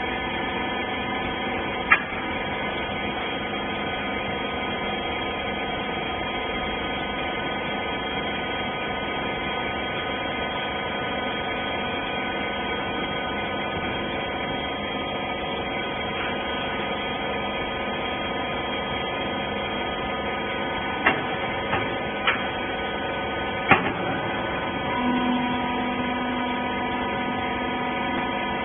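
Hydraulic rag baler's electric motor and pump running with a steady, many-toned hum, broken by a few sharp clicks; a lower hum joins near the end.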